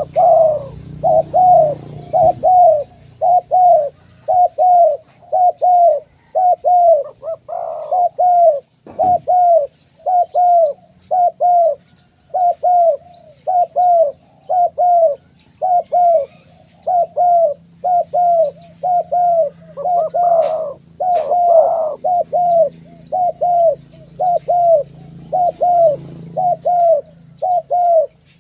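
Spotted doves cooing: a long, steady run of short, evenly repeated coos, about one and a half a second.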